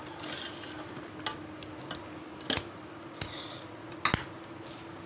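Metal skimmer ladle stirring thick mango kheer in an aluminium pot, with soft scraping and a handful of sharp clacks against the pot. The loudest clacks come about two and a half and four seconds in. A faint steady hum runs underneath.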